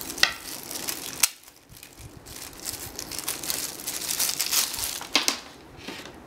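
Clear plastic packaging bag crinkling and crackling as hands open it and pull out the shutter-release cables inside. There are two sharp snaps in the first second or so, and the crinkling quietens shortly before the end.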